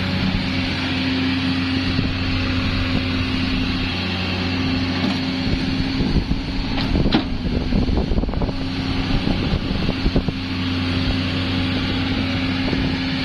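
Komatsu PC200-7 excavator's six-cylinder diesel engine running steadily, with a stretch of irregular knocks and clanks through the middle few seconds.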